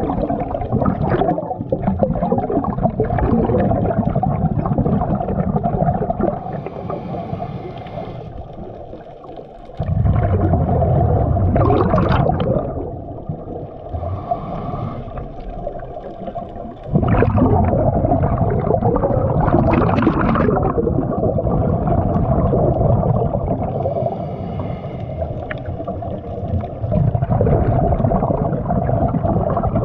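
Scuba diver breathing through a regulator underwater: four surges of exhaled bubbles, each a few seconds long, alternating with quieter, hissing inhalations.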